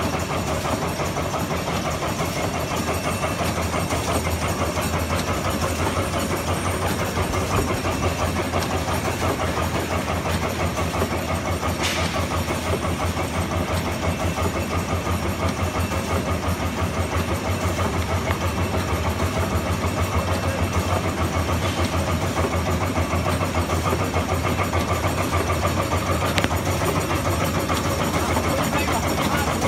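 Automatic wet wipe making and packing machine running steadily: a dense, rapid mechanical clatter over a low hum, with two brief sharp clicks, one about twelve seconds in and one near the end.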